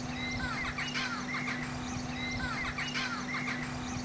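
Canada goose goslings peeping: many short, high-pitched falling calls, overlapping and repeating several times a second, over a steady low hum.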